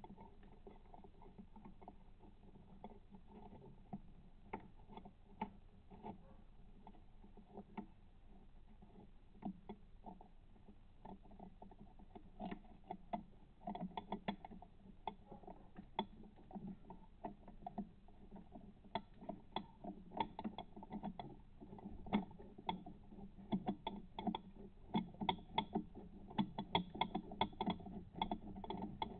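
Faint, irregular clicking and tapping of a quarter-inch-drive socket and wobble extension on metal as it is worked onto the bottom bolt of a diesel EGR cooler. The clicks come faster and closer together in the second half.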